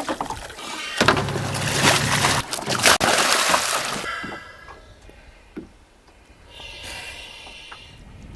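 Water splashing and sloshing as a spearfisher thrashes at the surface against a boat's hull, loud and choppy for about four seconds, then dying down to quieter water.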